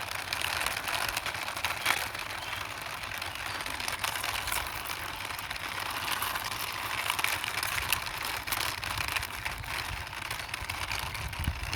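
A small plastic toy racing car pushed along by hand, its wheels rolling steadily over the ground with faint clicks.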